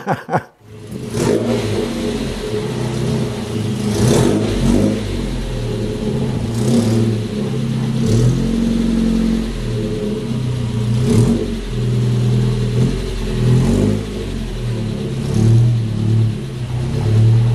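The engine of a 1951 Chevrolet pickup rat rod running, idling with short revs every few seconds.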